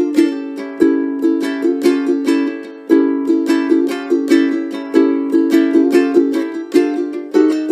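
Ukulele with a cocobolo rosewood soundboard being played: a steady run of plucked notes and chords, each attack sharp and ringing out as it fades, with louder chord strikes about three and five seconds in.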